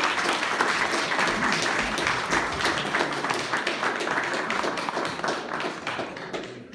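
Small audience applauding, a dense patter of hand claps that dies away near the end.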